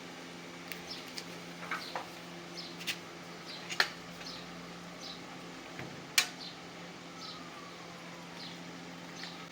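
Scattered light clicks and knocks of hand work on parts, two of them sharp and louder about four and six seconds in, over a steady low hum.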